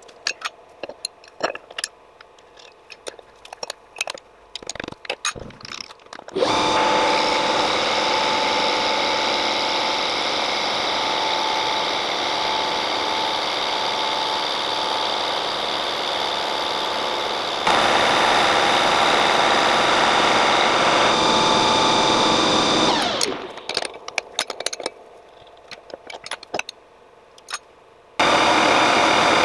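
Metal lathe: after a few seconds of clinking tools and metal against metal, the motor starts and the chuck runs steadily with a whine. It gets louder about eleven seconds later, then spins down. Metal clinks follow as pliers work at the stopped chuck, and the lathe starts up again near the end.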